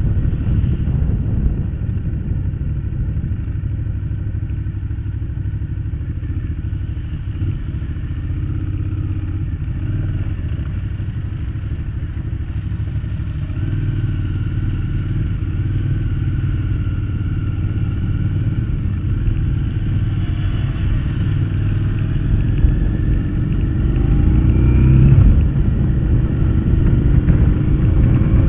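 Motorcycle engine running while under way, heard through a bike-mounted camera's microphone with a heavy low wind rumble. Near the end the engine pitch rises as it revs up.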